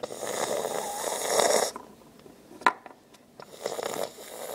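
Two long breathy, hissing noises made by a person's mouth, each about a second and a half long, with a sharp click between them.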